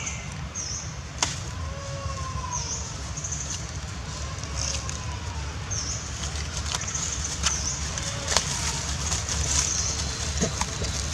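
Outdoor ambience over a low steady rumble: a short arched call repeats every three seconds or so, with high chirps between, and a few sharp crackles of dry leaves underfoot.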